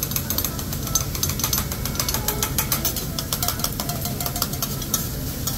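Metal hibachi spatulas clacking and scraping rapidly and unevenly on a steel teppanyaki griddle as the chef chops and mixes egg and fried rice, over a steady low rumble.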